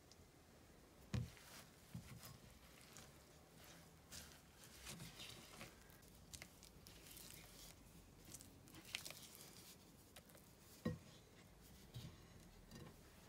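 Silicone spatula stirring thick gram-flour batter in a glass bowl: faint wet squishing and scraping, with two louder knocks, about a second in and near the end.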